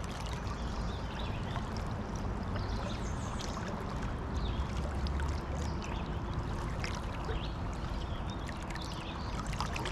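Steady rush and trickle of a flowing river.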